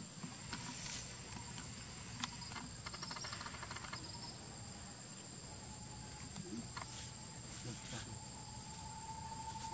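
Insects calling outdoors: a steady high-pitched buzz with a lower steady tone joining partway through and a brief rapid trill a few seconds in, plus a few faint clicks.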